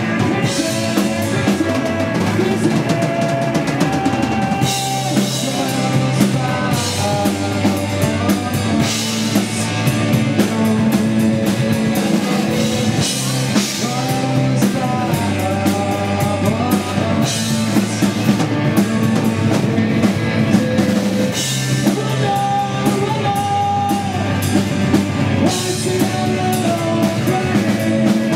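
Live rock drumming played loudly on a full drum kit, with bass drum, snare and repeated cymbal crashes, over sustained pitched notes from other band instruments.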